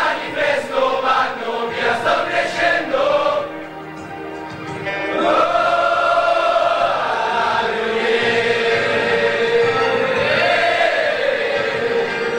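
Music with a choir singing: short rhythmic phrases at first, then, after a brief drop about four seconds in, long held chords.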